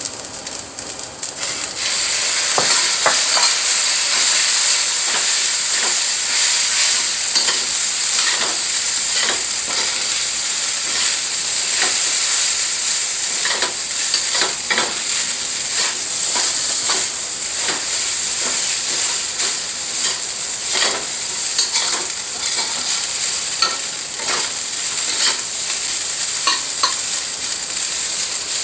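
Fried rice sizzling loudly in a hot metal wok, the sizzle jumping up about two seconds in as soy sauce hits the pan. A metal spatula scrapes and knocks against the wok throughout as the rice is stir-fried.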